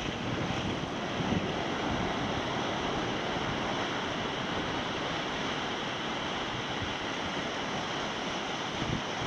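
Ocean surf: small waves breaking and washing over the shallows at the shoreline, a steady rush of water without pause.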